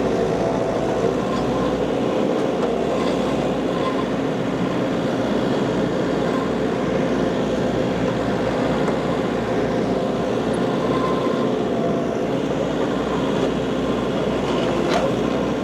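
John Deere 50ZTS mini excavator's diesel engine running steadily while its hydraulics work the arm digging out a stump. There is a single sharp knock near the end.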